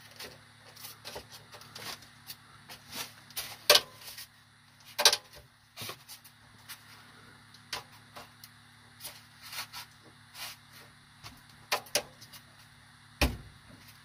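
Scattered handling clicks and knocks as hands press and shift a styrofoam insulation block, the two sharpest about four and five seconds in and a dull thump near the end.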